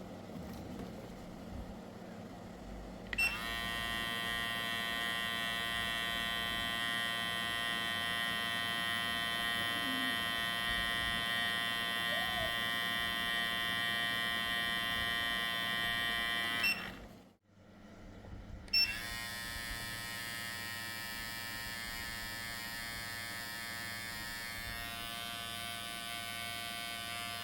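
Wmark NG 130 cordless hair clipper switched on about three seconds in and running with a steady high motor whine, switched off a little past the middle, then switched on again a couple of seconds later and left running.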